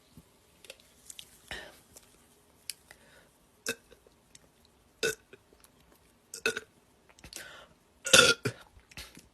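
A man's loud burp about 8 seconds in, brought up by carbonated soda, after several seconds of scattered faint short clicks.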